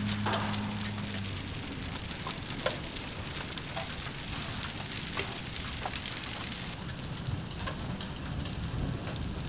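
Hail and rain falling on a concrete sidewalk and lawn: a steady hiss of rain with many sharp clicks of hailstones striking, one hit louder about three seconds in.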